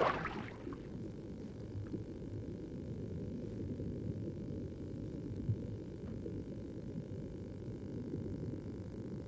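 A splash of churning water dies away at the start, leaving a steady, muffled, low underwater rumble. A faint knock comes about five and a half seconds in.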